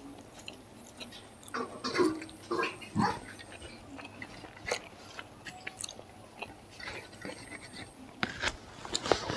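Close-up eating sounds: chewing, with fried papad being crushed by hand and mixed into rice on a metal plate. Irregular crackles and clicks, thickest near the end.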